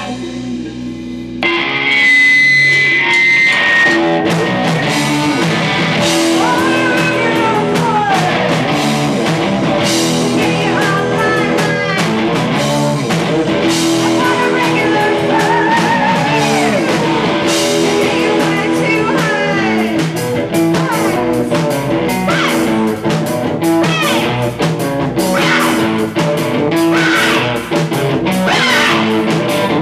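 Live rock band playing electric guitars and a drum kit, with a singing voice over them. After a short quieter moment at the start, the full band comes back in.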